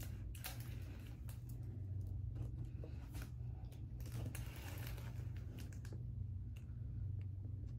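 Quiet room with a steady low hum, and faint clicks and soft brushing rustles from makeup being picked up and applied under the eye.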